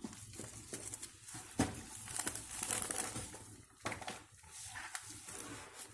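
Clear plastic wrap over a cardboard gift-box tray crinkling and crackling under the hands, in irregular crackles with a sharper snap about one and a half seconds in.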